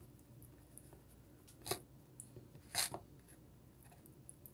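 Quiet room tone with two brief rustling scrapes about a second apart, handling noise from hands at work.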